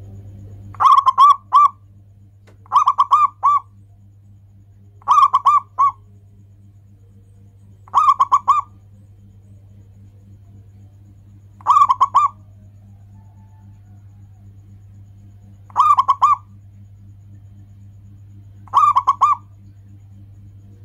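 Zebra dove (perkutut) singing its cooing song: seven short phrases of three or four quick, rolling coo notes each, a few seconds apart. A steady low hum runs underneath.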